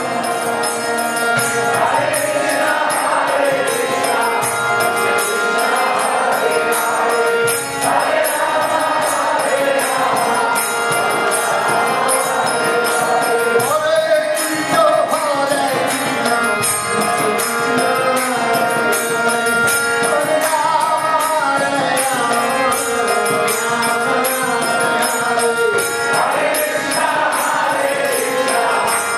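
Devotional kirtan chanting: a sung chant over the sustained reedy tones of a harmonium, with a two-headed mridanga-style hand drum and small hand cymbals keeping a steady beat.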